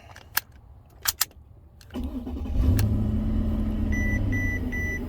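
A few clicks from the key and ignition switch, then about two seconds in the 2012 Mercedes-Benz S550's V8 cranks, fires and settles into a steady idle, starting on a used ignition switch newly programmed to a new key. Near the end a dashboard chime beeps rapidly and repeatedly.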